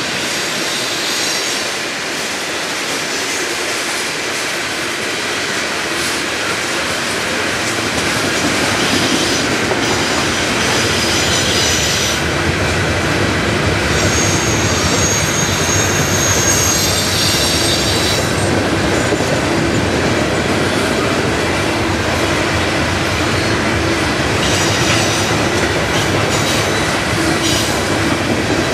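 Loaded coal train's hopper cars rolling past: a steady rumble and clatter of wheels on rail. High-pitched wheel squeal comes and goes several times and is longest in the middle.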